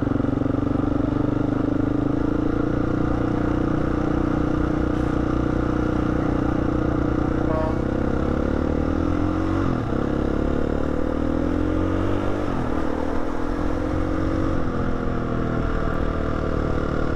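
KTM 350 single-cylinder four-stroke dirt bike engine running under way, steady at first, then rising in pitch as it accelerates, with two sharp drops for gear changes.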